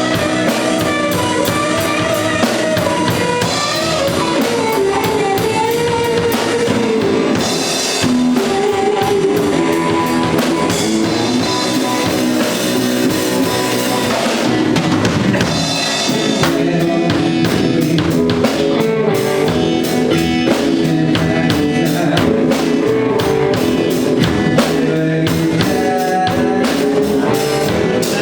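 Blues band playing an instrumental passage: guitar over a steady drum-kit beat.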